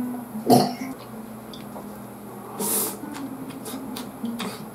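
A man's short throaty sound about half a second in, right after a drink, then a breathy exhale near the middle. Light clicks of chopsticks against a metal lunch box follow as he starts eating again.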